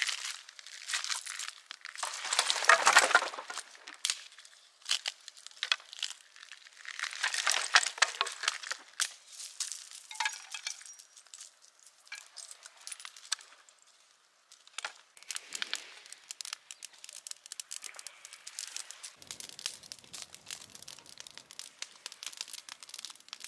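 A campfire being laid and lit: tinder and kindling crumpled and snapped, heard as bursts of crinkling with many sharp cracks and clicks, loudest twice in the first ten seconds and then quieter, scattered crackling.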